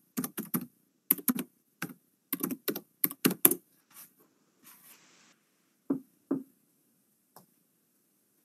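Computer keyboard typing: a quick run of key clicks for the first three and a half seconds, then a few single clicks.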